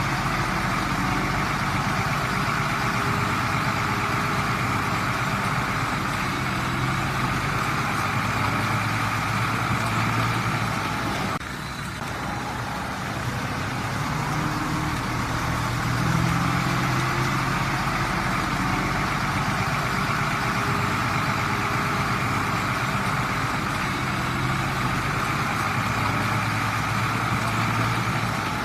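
Komatsu D20P bulldozer's diesel engine running continuously while the machine works, its note shifting up and down now and then. The level drops briefly about halfway through, then recovers.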